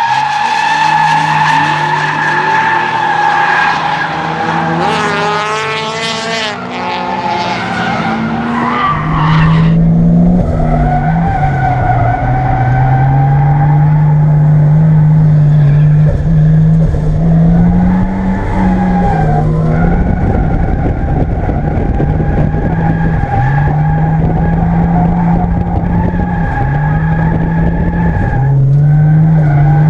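Toyota Supra MK3's turbocharged 3.0 straight-six drifting, with tyres squealing steadily over the engine. From about nine seconds in, a heavy low rumble joins, and the engine note rises and falls again and again as the car is driven hard, with several sharp drops between climbs.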